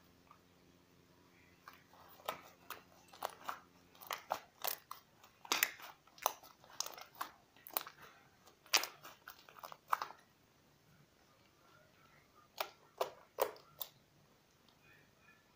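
Crunchy slime full of beads being squeezed and stretched by hand, giving a run of sharp crackles and pops from about two seconds in to ten, then three more pops near the end.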